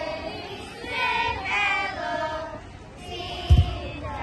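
A group of young children singing together in phrases, with a brief low thump near the end.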